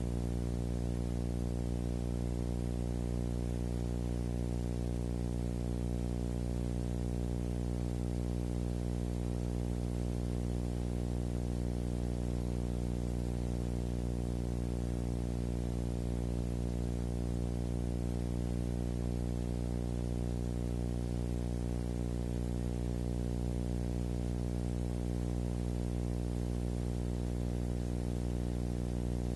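A steady, unchanging low drone or hum with many evenly spaced overtones, over a faint hiss; it holds the same pitch and level throughout, with no street sounds, voices or impacts.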